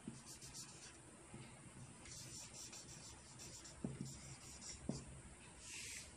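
Faint scratching of a felt-tip marker writing words in short strokes, with two soft knocks in the second half.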